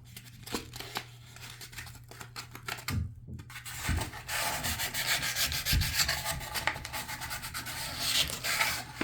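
Sandpaper rubbed back and forth by hand inside a tub faucet valve body, lightly sanding the cartridge bore to take off burrs. A few light scratches at first, then about four seconds in a steady, continuous scraping.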